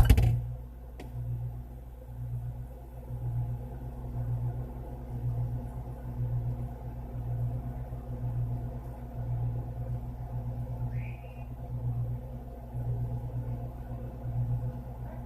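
Refrigerator running, heard from inside the closed fridge: a steady low hum with a throb that swells and fades about once a second. A short thump as the door shuts at the very start.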